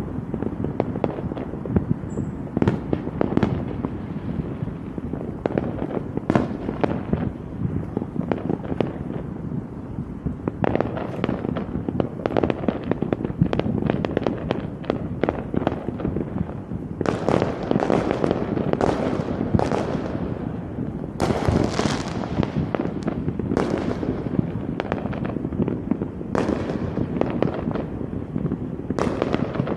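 Fireworks going off in rapid succession, many sharp bangs and crackles overlapping, thickest in a heavy run a little past the middle.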